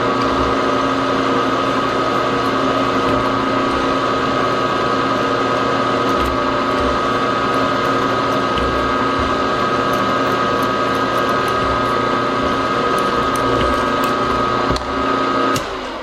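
Gearhead milling machine running in third gear at 345 RPM, its gear train and spindle holding a steady whine as a twist drill bores a hole in an aluminium plate. The spindle shuts off about fifteen and a half seconds in and winds down.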